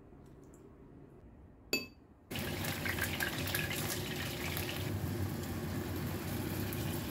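A single bright clink about two seconds in, then a steady sizzle with scattered crackles from chicken wings frying in oil in a frying pan.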